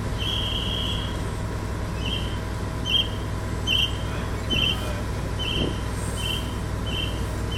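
Electronic warning beeper on heavy equipment sounding one long beep, then a steady run of short high beeps a little under a second apart, over the steady low running of a diesel engine.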